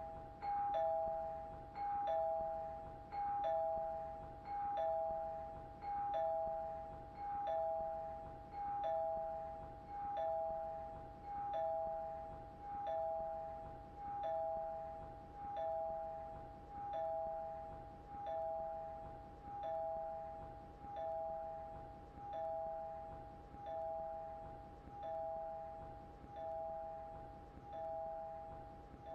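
Doorbell chime ringing over and over: a two-note ding-dong, high note then low, repeating without a break about every second and a half.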